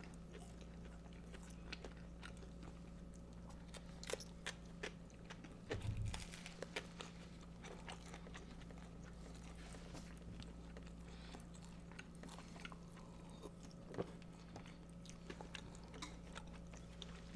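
Faint close-miked chewing and biting of a sloppy joe sandwich and coleslaw: scattered soft crunches and wet mouth clicks over a steady low hum.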